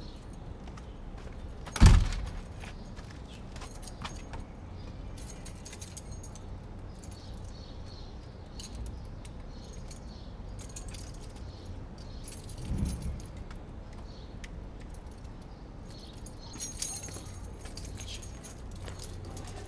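A door shutting with a heavy thump about two seconds in, then keys jangling on and off while the door is being locked, with a second, softer thump about thirteen seconds in and a burst of key jingling near the end.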